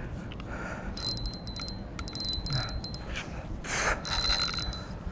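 Spinning reel's drag clicking in three short, rapid runs with a thin ring as the hooked ray pulls line off, with a brief rush of noise just before the last run.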